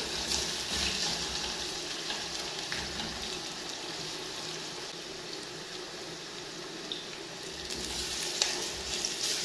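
Sliced onions sizzling in a stainless steel pot while a wooden spatula stirs and scrapes them. The sizzle eases off in the middle and picks up again near the end, with a few light knocks of the spatula on the pot.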